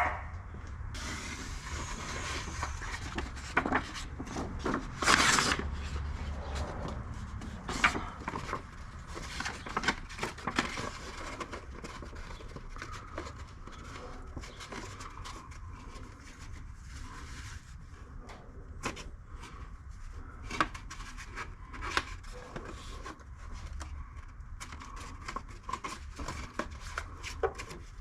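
Hands making a patch template: scattered rubbing, scraping and small clicks of the template material being handled, marked and fitted. There is a short louder rushing noise about five seconds in, over a steady low hum.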